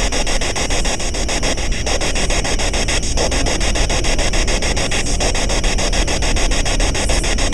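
A steady, loud hiss of static-like noise, pulsing quickly and evenly, with no voices and no separate events standing out.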